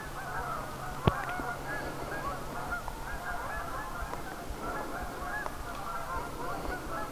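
A flock of geese honking, many calls overlapping continuously, with one sharp click about a second in.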